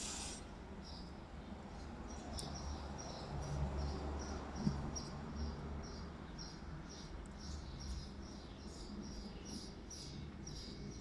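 Faint, evenly repeated high chirps, about three a second, from a small chirping animal, over a low steady hum.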